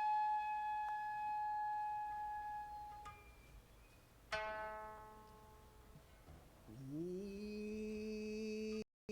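Kibigaku, traditional Japanese court-style music of the Konko faith. A long held flute note fades out about three seconds in, a single koto string pluck rings and decays about a second later, and near the end a low note slides up and holds steady.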